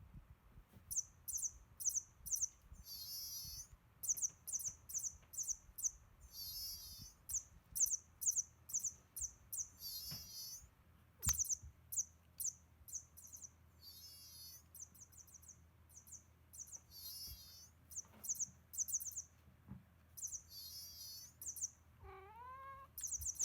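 Battery-powered toy mouse squeaking over and over in short, very high chirps, some with a wavering pitch; the squeak is set off by vibration as the toy is jostled. A few soft knocks, and a single meow near the end.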